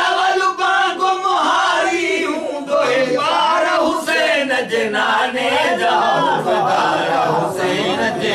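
Group of men singing a devotional naat together without instruments, several voices chanting at once. The voices pile up and overlap more in the second half.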